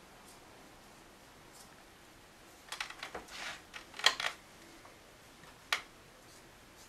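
Quiet small-room tone, broken about three seconds in by a short flurry of rustles and clicks with one sharp click among them, then a single sharp click a second and a half later.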